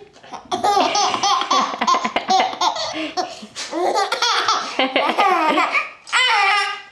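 A nine-month-old baby laughing in a long run of giggles and belly laughs at a pretend "achoo" sneeze, ending on one longer held note.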